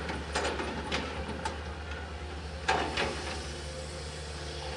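Tracked excavator's diesel engine running steadily as the machine works, with a few short clanks and knocks; the loudest comes about two and a half seconds in.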